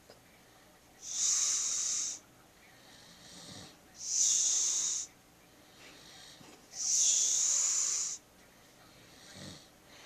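A sleeping person snoring: three loud, hissing, wheezy breaths about three seconds apart, each lasting about a second, with fainter low snoring breaths between them.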